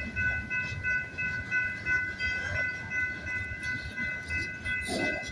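Grade-crossing warning bell dinging rapidly and steadily over the rumble and rhythmic clatter of double-stack freight cars rolling past. A brief clank comes near the end.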